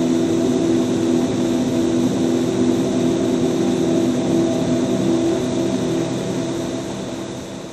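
A steady low drone of several held tones over a hiss, easing off toward the end.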